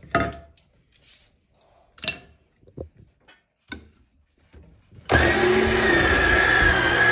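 A Yonanas 902 frozen-fruit soft-serve maker. A few light knocks come first as the plunger and frozen fruit are handled in the chute. About five seconds in, its electric motor switches on and runs steadily with a whine.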